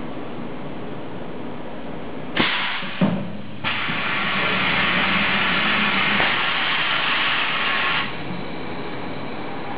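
Infrared plastic welding machine cycling, over its own steady whir: two sharp clacks about half a second apart as the heater platen is withdrawn, then a loud even air hiss for about four seconds while the tooling presses the heated plastic parts together, cutting off suddenly.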